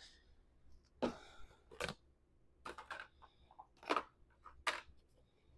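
Plastic deli containers of potato wedges being handled and set down on a counter: about five light knocks and clacks spread over a few seconds.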